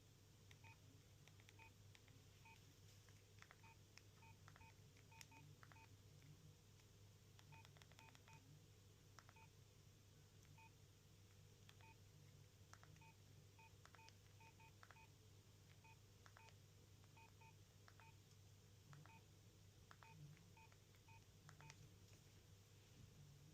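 Faint keypad beeps and key clicks from a Nokia 6230i mobile phone as its buttons are pressed, short beeps in irregular clusters over a low steady hum.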